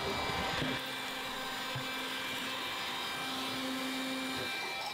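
Handheld cordless vacuum cleaner running steadily, a continuous motor whine with airflow hiss.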